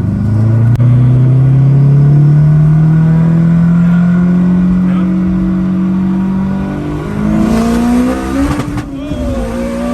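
Turbocharged 504-horsepower Honda S2000's four-cylinder engine under hard acceleration, its pitch climbing steadily for about seven seconds. Near the end there is a short break and the revs drop, as at a gear change.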